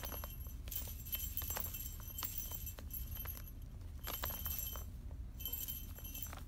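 Small bell on a cat toy jingling in short spells as kittens bat and chase it, with light clicking taps of paws and toys.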